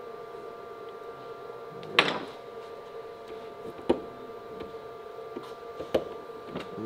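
Metal knocks and clicks from handling the aluminium reel and hex-key tool: one loud clank with a short ring about two seconds in, then sharper single clicks near four and six seconds. A steady hum runs underneath.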